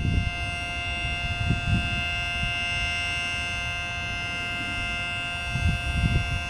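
Mini Model 5T siren, heard from about 100 feet away, sounding an alert: a steady tone made of several pitches together, held at full speed without rising or falling. Low rumbling noise runs underneath and swells briefly near the start and again near the end.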